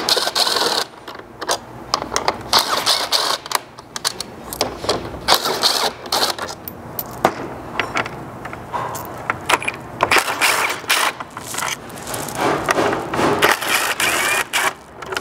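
Cordless impact driver with a 10 mm socket, running in several short bursts as it backs screws out of the plastic active grille shutter housing, with clicks of handling between the bursts.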